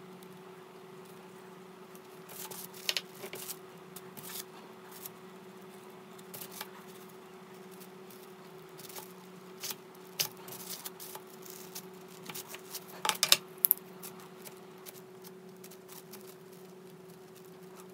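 Scattered light clicks and taps of hands working stone-powder clay, a plastic ruler and a craft knife on a plastic-covered board, with a quick run of clicks about thirteen seconds in. A steady low hum runs underneath.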